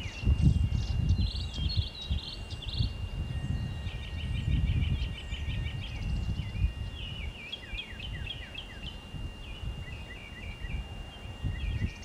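Several songbirds chirping and trilling, with a fast run of repeated notes about four to five seconds in, over gusty wind rumbling on the microphone. A thin steady high whine runs underneath.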